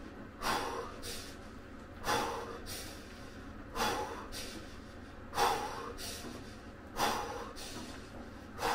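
A man breathing deeply and rhythmically through his mouth while immersed in ice water. Each breath cycle is a strong rush of air followed by a softer one, about every second and a half, six times. This is controlled, Wim Hof–style breathing used to cope with the cold.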